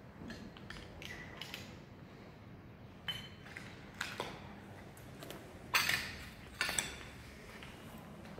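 Scattered metallic clinks and knocks from demolition debris and tools. There are a few single clinks, then the loudest clatter comes a little before six seconds in, with two more about a second later.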